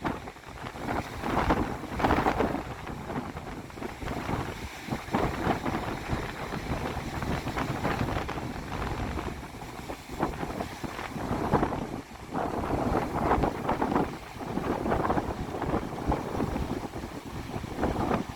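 Strong wind gusting across the microphone, rising and falling in surges every few seconds.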